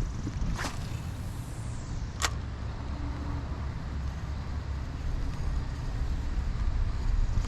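Wind buffeting the microphone in a steady low rumble, broken by two brief sharp clicks about half a second and two seconds in.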